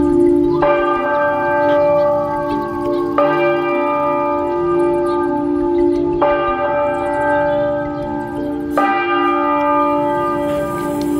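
A church bell tolling: four single strikes about two and a half to three seconds apart, each left ringing on into the next.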